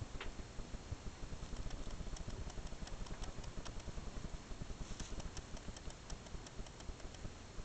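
Netherland dwarf rabbits munching hay: a fast, steady run of small crunching clicks, with sharper crisp clicks of hay from about a second and a half in.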